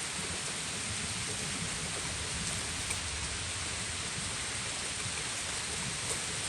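Steady rain falling in a thunderstorm: an even hiss, with a couple of faint ticks about three and six seconds in.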